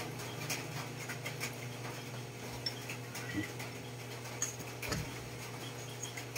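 Eating sounds: scattered small clicks of a metal spoon in a bowl of dipping sauce, and bites and chewing of boiled okra, over a steady low hum.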